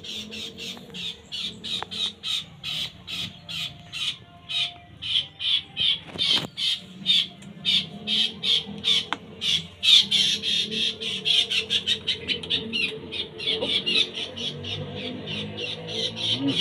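White-shouldered triller (kapasan) giving a rapid run of short, harsh calls, about three or four a second, without a break; the bird is frightened.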